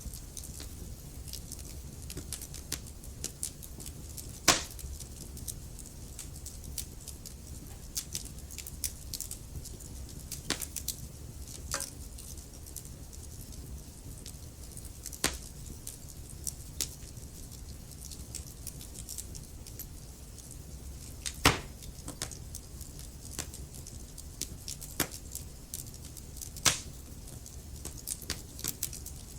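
Wood fire crackling, a steady low rumble and hiss of the flames with irregular small snaps and a few louder pops, the sharpest about four and a half seconds in, about twenty-one seconds in and near the end.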